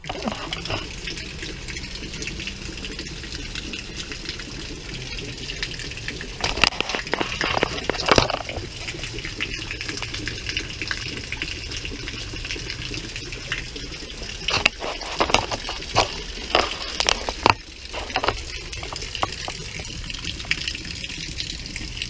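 Heavy rain pouring down and splashing onto a brick patio: a steady rushing hiss, with a few sharper knocks or splashes about a third of the way in and again past the middle.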